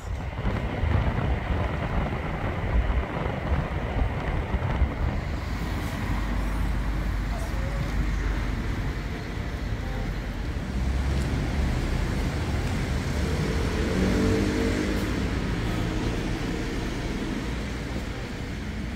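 Road traffic and car noise, a steady low rumble, with a person's voice heard briefly about three quarters of the way through.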